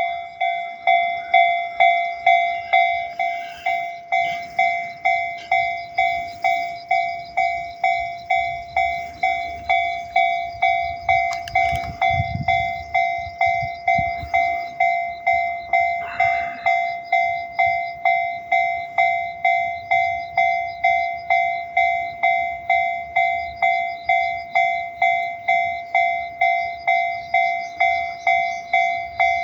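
Japanese railway level-crossing warning bell ringing steadily at about two strikes a second, a bright repeating ding of several ringing tones. A low rumble swells and fades around the middle.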